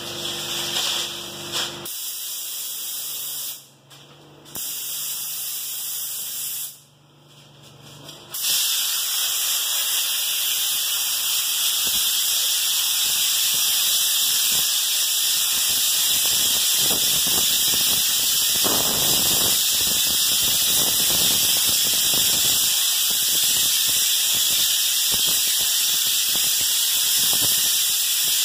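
Binks 7E2 texture spray gun with a 702 tip, air-spraying drywall mud for an orange peel texture: a loud airy hiss. It starts and stops twice in the first eight seconds, then sprays continuously.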